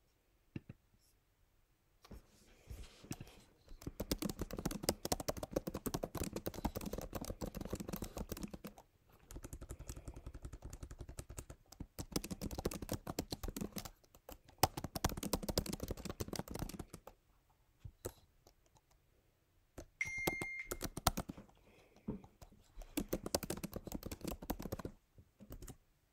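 Typing on a computer keyboard: rapid key clicks in several long bursts, with short pauses between them. A brief high beep sounds about three-quarters of the way through.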